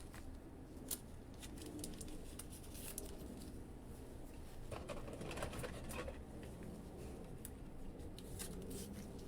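Quiet handling of trading cards: faint scattered ticks and light rustles as cards and their sleeves are moved, over a low room hum.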